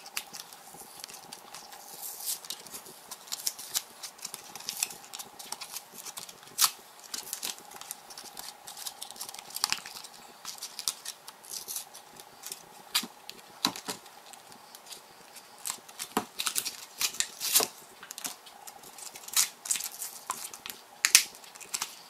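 Stiff plastic blister packaging crackling and clicking in irregular bursts as it is pulled apart by hand, along with a paper lid being peeled off a small plastic slime cup.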